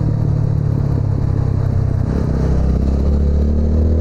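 TVS Apache RTR 200's single-cylinder engine running steadily while the motorcycle is ridden on the road.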